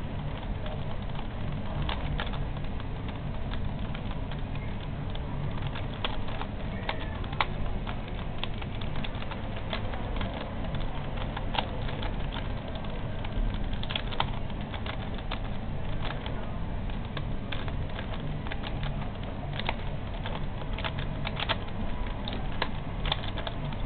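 Irregular plastic clicks and clacks of a hand-held twisty puzzle cube being turned, a few sharper clicks standing out, over a steady low background hum.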